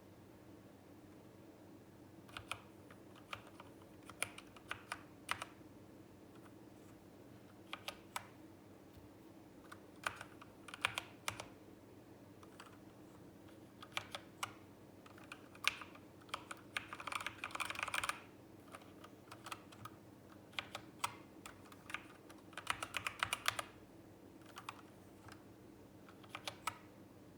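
Typing on a Zet Blade Pro keyboard with optical red switches: irregular keystrokes in short runs, with two quicker bursts of fast typing in the second half.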